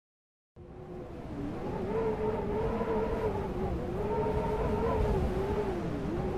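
Strong Arctic wind blowing snow across the tundra, starting about half a second in, with a howling tone that wavers up and down and sinks lower near the end.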